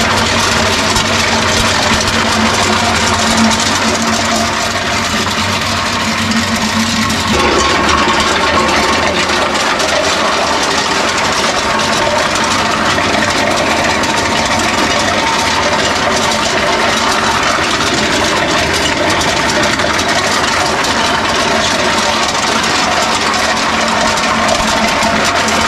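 Areca nut dehusking machine driven by an electric motor, running steadily under load as the nuts pass through it. The sound shifts slightly about seven seconds in.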